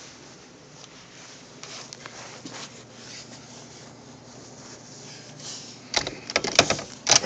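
Faint rustling and handling, then about six seconds in the clack of a door being pushed open and the start of loud rushing blizzard wind.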